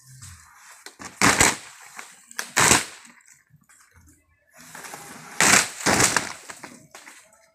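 Thin plywood sheets thrown down onto a pile of plywood, landing with about four sharp slaps and a rattle of loose sheets between them.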